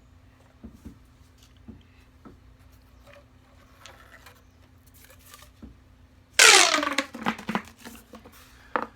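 Fidget toy being handled: a few faint taps and clicks, then about six seconds in a sudden loud, crinkly, zipping noise with pitch sliding downward that breaks into choppy bursts.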